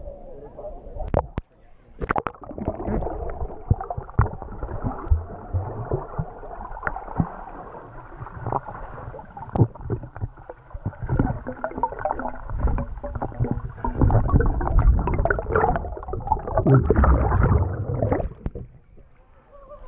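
Muffled underwater water noise from a GoPro held below the surface: gurgling and sloshing with many small knocks as swimmers move through the water, swelling louder near the end.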